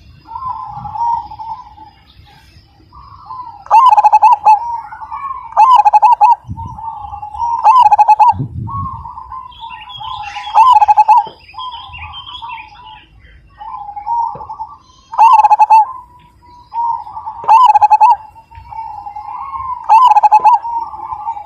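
Zebra dove (perkutut) cooing in repeated rolling phrases, the loudest coming about every two seconds in two runs and loud enough to distort.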